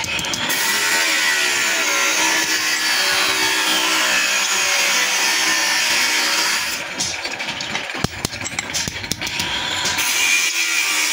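A power tool working a steel saw blade, a steady gritty noise with a whine that slowly drops in pitch under load. A little past halfway it eases off into a run of short clicks and knocks, then bears in again near the end.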